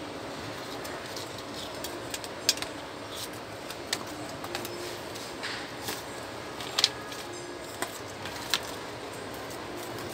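Light ticks and rustles of a thin plastic flat flex cable, the print-head ribbon cable of an Epson TM-U220 printer, being handled and laid against a workbench. The ticks are scattered and irregular, the sharpest about two-thirds of the way in, over a steady background hiss.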